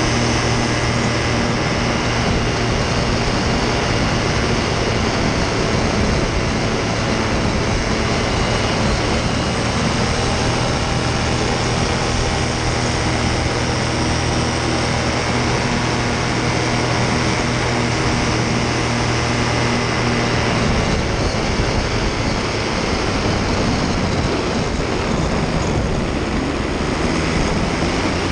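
Paramotor engine and propeller running steadily in flight, a constant drone with wind rushing over the microphone; the engine note shifts a little about twenty seconds in.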